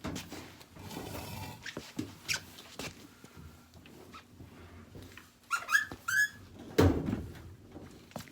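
A washing machine being shifted and lifted by hand: scattered knocks and scrapes, then a quick run of short squeaks about two thirds of the way through, followed by a heavy thump.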